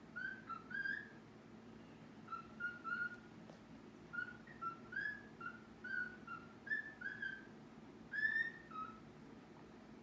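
A caged pet bird whistling: short, clear notes in about six brief phrases of two to four notes each, with short pauses between them.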